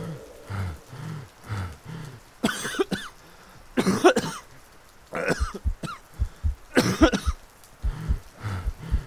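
Four harsh, raspy voice-like bursts, each under a second, about one and a half seconds apart, over a low thud that repeats about twice a second.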